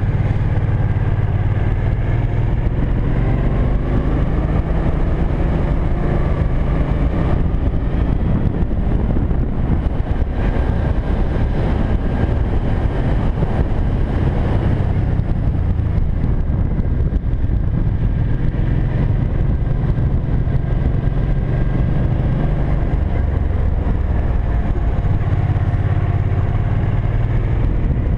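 Cruiser motorcycle engine running while riding. The engine note eases off for several seconds in the middle, then comes back.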